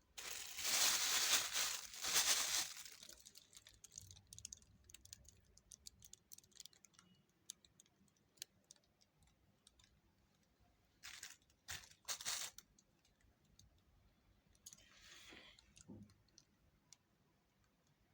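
Crinkling rustle of plastic being handled, loudest over the first three seconds. Scattered light clicks and knocks follow, then two short rustles about eleven and twelve seconds in and a softer one about fifteen seconds in.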